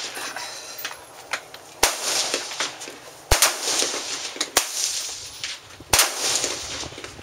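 Rifle shots: three loud cracks, about one and a half and two and a half seconds apart, each trailing off in a long rolling echo, with a fainter shot between the last two.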